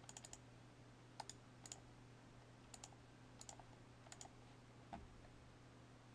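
Faint computer mouse clicks, about seven in all, some single and some in quick runs of two or three, over a low steady hum.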